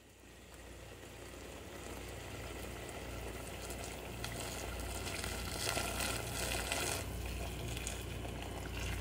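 Meat, onions and spices with liquid just added, sizzling and bubbling in a pot on a gas stove. The hiss grows louder and is strongest a little past the middle, over a low steady hum.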